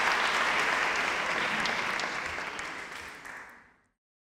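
Audience applauding, a dense patter of many hands clapping that fades away and is gone just before the end.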